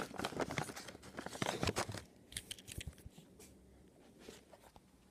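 A bag of jerky-bite dog treats being torn open and crinkled by hand: dense crackling for about two seconds, then a few sparser rustles and clicks.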